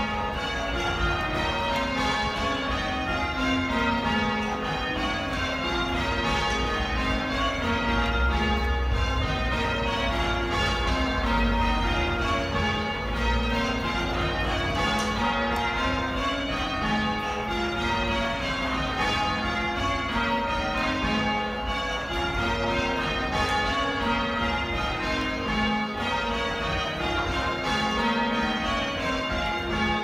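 Church bells change ringing, pulled by ropes from the ringing chamber below: a steady, unbroken run of overlapping bell strikes, part of a quarter peal.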